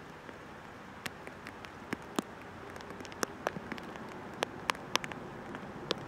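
Rain falling: scattered, irregular sharp drip ticks over a steady hiss, growing denser and a little louder about halfway through.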